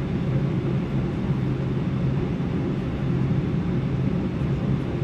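Steady cabin noise inside a Boeing 747-8 upper deck on the ground: an even rush of air with a constant low hum, unchanging throughout.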